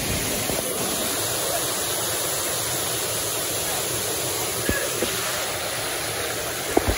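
Steady rush of a rocky stream pouring over the top of a waterfall, with a few faint knocks near the end from the phone being handled.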